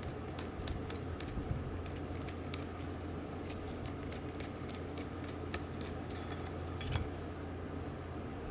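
Small metal parts of a fishing reel clicking and clinking irregularly as it is handled and taken apart, with a brief high ring of metal about six seconds in.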